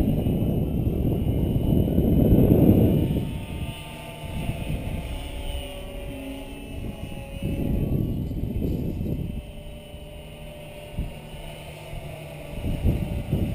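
Wind buffeting the microphone in gusts, loudest in the first three seconds, again around eight seconds and near the end. Between gusts, the faint whine of a distant electric RC helicopter, an Align T-Rex 550, wavers in pitch as it flies.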